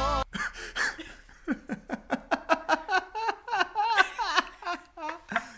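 A man and a woman laughing together in quick, repeated bursts of laughter.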